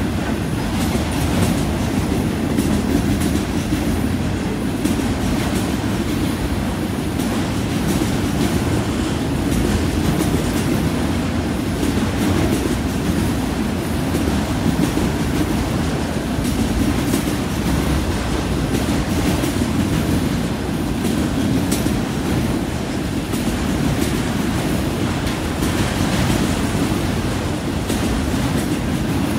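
Enclosed autorack freight cars rolling past at a steady speed: a continuous rumble of steel wheels on rail, with repeated clicking as the wheels pass over rail joints.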